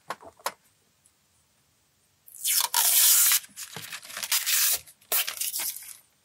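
Protective film being peeled off an acrylic panel. A couple of light clicks come first, then from about two seconds in there are long rasping tearing pulls, the first the loudest, followed by several shorter ones.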